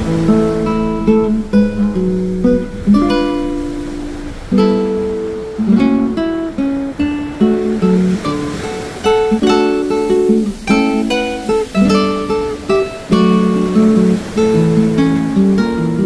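Background music played on a plucked acoustic guitar: a run of picked notes and chords, each one struck and left to ring out.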